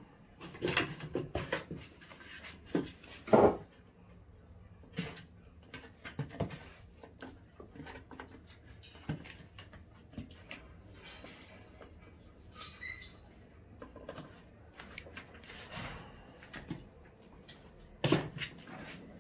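Cirneco dell'Etna puppies playing: scattered knocks, thuds and scuffling against their bed, a cardboard box and the wire pen on a tiled floor. The loudest knock comes a few seconds in and another near the end, with a short high squeak about two-thirds through.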